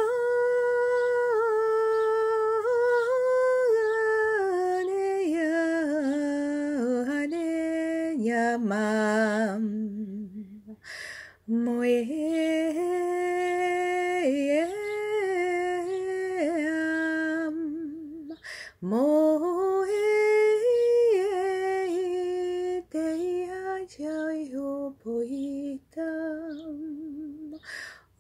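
A woman singing a wordless chant unaccompanied, in long held notes that waver and slide between pitches. It comes in three phrases, with short breaths about ten seconds in and again near eighteen seconds.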